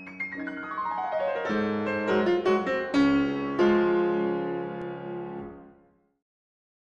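Short piano outro jingle: a quick run of notes, then held chords that fade out about six seconds in.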